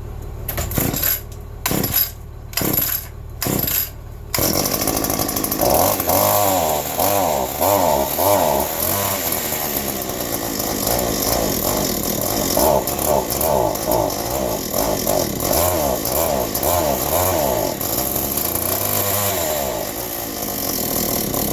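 Small two-stroke engine of a handheld yard tool being pull-started cold: about five quick cord pulls, catching on the last one about four seconds in, then running with its speed wavering up and down. It is cold and likes to die.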